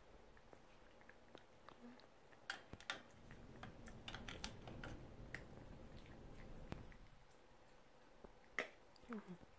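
Toy poodle gnawing a dental chew: faint, scattered clicks and crunches of teeth on the chew, busiest in the middle.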